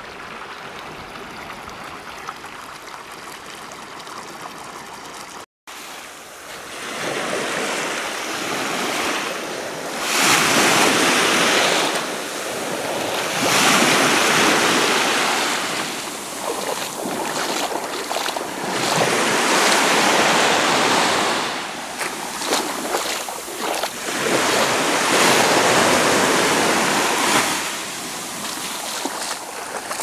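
Small waves on a calm sea breaking and washing up the shore close by, the wash swelling and drawing back about every five to six seconds. After a short gap about five seconds in, the surges come louder and closer.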